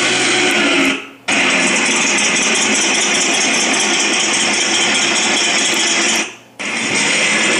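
Recorded Tiger I tank engine sound effect played from a cheap MP3 player in a Heng Long RC tank, running steadily. It fades and cuts out briefly twice, about a second in and again about six seconds in, each time starting again abruptly.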